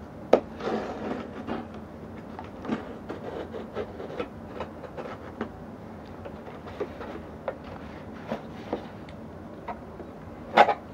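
Cardboard shipping box being handled and cut open, with irregular scrapes, taps and crinkles of cardboard and packing tape. There is a sharp click about half a second in and a louder crackle near the end.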